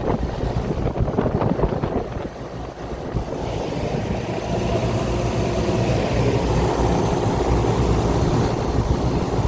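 2017 Goodman 5-ton package heat pump running in cooling mode: a steady low compressor hum under the rush of the condenser fan blowing hot air.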